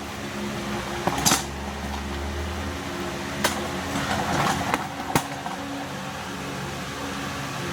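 Steady mechanical hum, like a running fan, with a few sharp clicks and knocks of objects being handled and set down, one about a second in and others around three and a half and five seconds.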